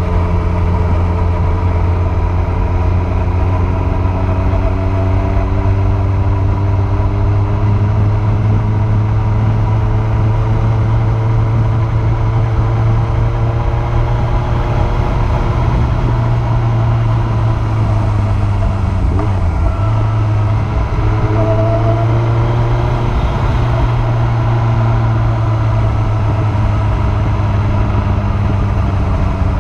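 Kawasaki ZZR1400's inline-four engine running at steady road speed, its note drifting slowly up and down with the throttle, under a constant rush of wind noise. About twenty seconds in, the engine note dips briefly and then picks up again.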